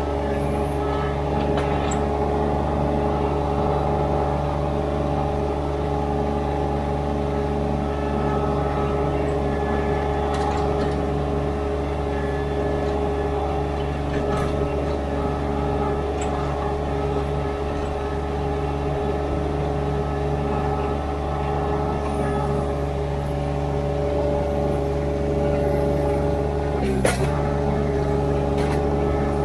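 Ditch Witch SK800 mini skid steer's engine running steadily at constant speed, with a single sharp knock near the end.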